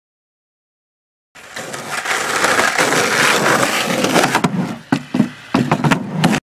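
Skateboard wheels rolling on rough asphalt, building up after about a second of silence. Near the end come several sharp clacks of the wooden deck and wheels striking concrete, then the sound cuts off abruptly.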